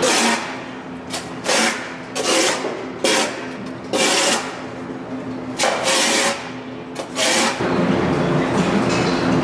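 Long-handled scraper pushed over a wet, manure-covered concrete floor in short strokes, about eight rough scrapes, over a steady low hum.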